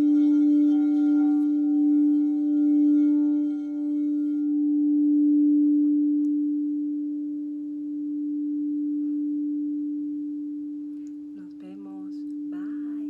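Crystal singing bowl sounding a steady D note. At first the rim is being rubbed and the tone pulses with a shimmer of overtones; about four and a half seconds in the rubbing stops and the note rings on alone, slowly fading. Two short vocal sounds near the end.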